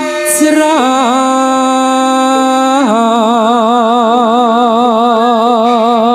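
A male sinden singing a Javanese tembang in a high voice, with long held notes and wide vibrato. The pitch drops to a lower held note about three seconds in.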